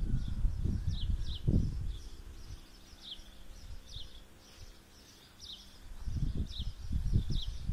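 Gusts of wind buffeting the microphone, fading out for a few seconds in the middle and picking up again near the end. Under it, a bird repeats short, high, falling chirps about once or twice a second.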